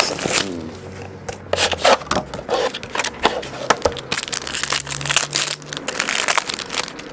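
Clear plastic wrapping from a trading-card box being peeled off and crumpled in the hands: a run of irregular crinkling crackles.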